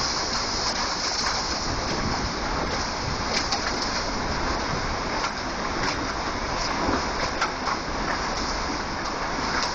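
Severe storm wind of around 90 mph blowing hard and steadily, a dense rushing noise, with a few brief sharp taps or clicks scattered through it.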